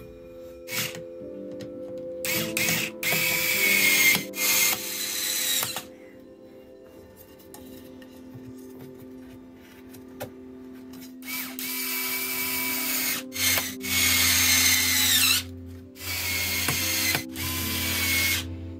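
Small 3.2 V cordless screwdriver driving 19 mm screws through metal joiner plates into wooden boards, in repeated runs of one to two seconds in two clusters. The motor whine dips in pitch near the end of some runs as the screw seats.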